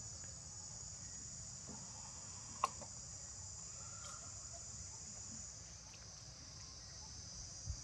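Steady high-pitched chorus of forest insects, with a single sharp click about two and a half seconds in.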